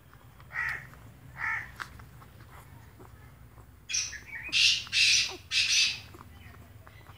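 Crows cawing: two shorter caws about a second apart, then four loud, harsh caws in quick succession about four seconds in.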